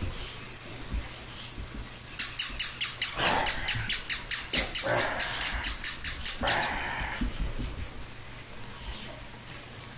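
Battery-operated toy puppy yapping: a fast run of short, high electronic yips, about five or six a second, starting about two seconds in and stopping after some four seconds.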